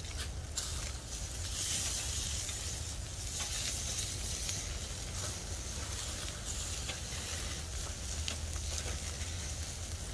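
Bacon strips sizzling on a wire grill over an open wood fire, with fat spitting and crackling in the flames, over a low steady rumble.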